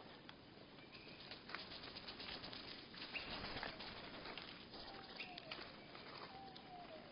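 Small birds at a seed feeder, slowed to a third of normal speed: scattered clicks and taps of feeding and flutter, short flat call notes, and from about the middle on, drawn-out falling calls that come out low and odd-sounding from the slowdown.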